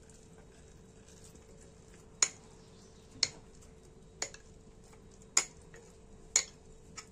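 Metal spoon clinking against a glass jar while scooping out sticky sourdough starter: about six sharp clinks, roughly one a second, starting about two seconds in.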